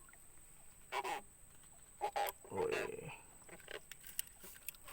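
Freshly caught baung (Hemibagrus) catfish croaking in a few short grunts while being handled, the sound it makes by rubbing its pectoral spines.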